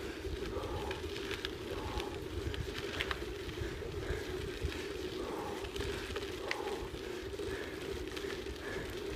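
Wind buffeting the microphone over a steady rumble of travel along a sandy forest track, with a few sharp clicks.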